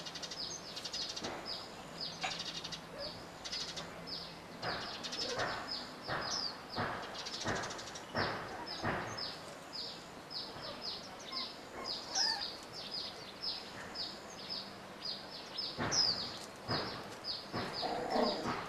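Young puppies squealing and whimpering now and then as they tussle, in short cries clustered through the middle and again near the end. Under them runs a steady chirping of short, high calls, about two a second.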